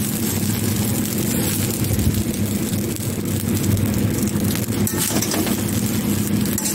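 Vegetable fried rice being stir-fried in an iron kadai: a spatula tossing and scraping the rice, with a few faint clicks, over a steady low hum.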